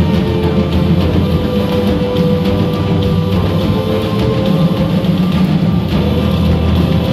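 Live percussion ensemble playing loudly: several marching snare drums beaten with sticks together with a drum kit, over an electric bass guitar, in a steady driving rhythm.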